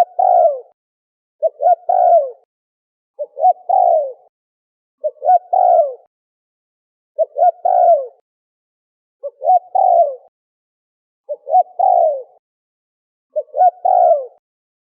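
A dove cooing, its call repeated steadily about every two seconds. Each call is two or three short notes and then a longer coo that falls in pitch.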